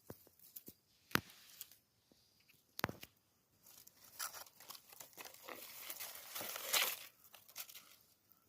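Crackling, rustling noise of dry material being disturbed. A sharp click comes at about one second and another at about three seconds, then a denser run of crackle lasts until near the end.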